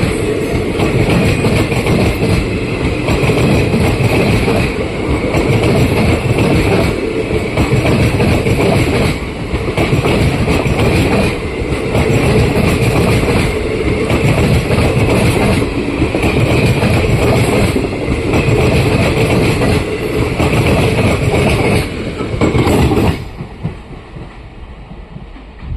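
Train running past close by, its wheels clattering over the rail joints in a regular beat about every two seconds. The sound drops away sharply near the end.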